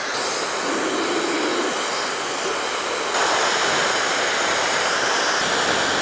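An iDOO high-speed hair dryer with a brushless motor running steadily: a strong rush of air with a thin high-pitched whine over it. It grows a little louder about three seconds in.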